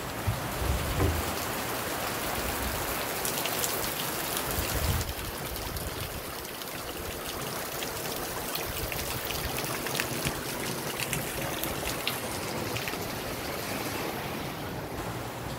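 Steady rain with scattered drops ticking, heard from an open doorway or balcony. A few low handling thumps come in the first second.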